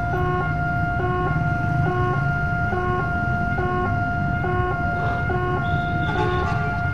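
Railway level-crossing warning alarm sounding a repeating electronic two-tone pattern, a little faster than once a second, over the low rumble of idling traffic.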